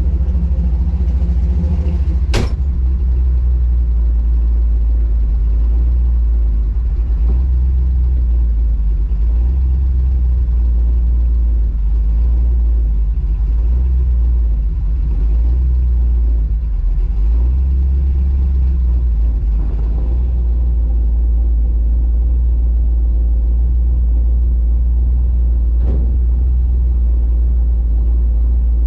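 1967 Chevy Nova's V8, on a freshly fitted FiTech 600 hp throttle-body fuel injection system, running with a steady low exhaust rumble. A sharp click sounds about two and a half seconds in, and a fainter one near the end.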